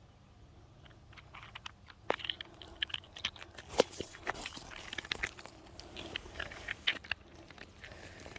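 Irregular crunching and sharp clicks of loose rock and gravel, starting about two seconds in and stopping a little after seven seconds.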